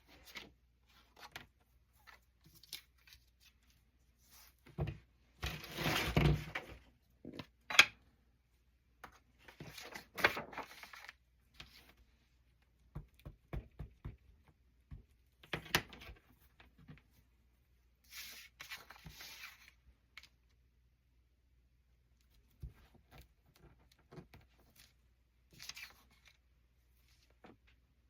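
Intermittent sounds of paper and cardstock being handled at a craft table: short scraping and rustling noises and a few sharp taps, separated by silent pauses.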